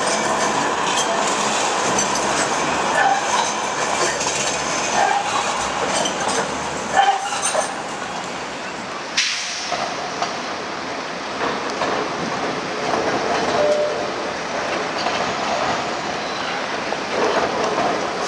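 Manchester Metrolink trams running on street track: steady wheel-on-rail noise with scattered sharp clicks, over city street noise. The sound changes abruptly about nine seconds in.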